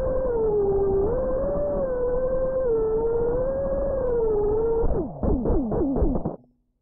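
Brushless motors of a 5-inch FPV quadcopter (iFlight Xing-E 2306 2450KV with three-blade props) whining steadily, the pitch wavering up and down with throttle. About five seconds in, the whine drops in several quick falling dips as the quad comes down, then cuts off abruptly as it is disarmed.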